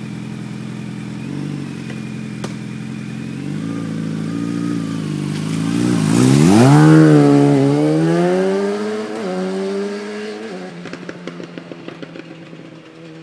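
Yamaha FZ1's inline-four engine approaching, swooping past with a sharp drop and rise in pitch about seven seconds in, then pulling away through two upshifts and fading.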